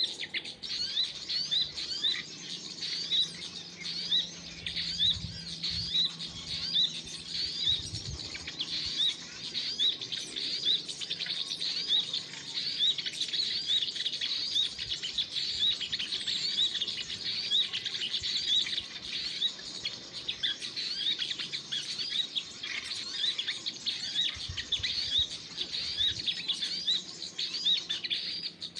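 Small songbirds chirping: a dense, continuous run of short, high chirps, several a second.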